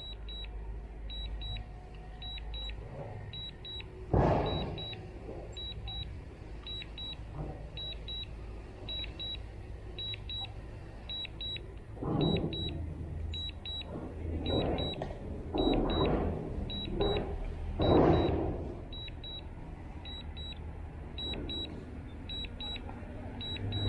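A DJI RC-N1 remote controller beeping in short high double beeps, about one pair a second, the alert it gives while the drone is on its way back to the home point. A steady low hum runs underneath, with louder swells of noise about 4 s in and several between 12 and 18 s in.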